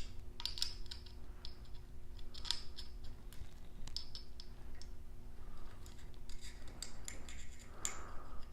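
Irregular small clicks and scratches of a toothed rubber timing belt being fed by hand through the plastic and metal parts of a Creality Ender 3 3D printer's frame.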